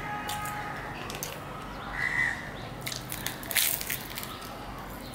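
Puffed, deep-fried luchi being handled and bitten: light crackles of the bread near the start, then a crisp crunching bite about three and a half seconds in. A short high call sounds about two seconds in.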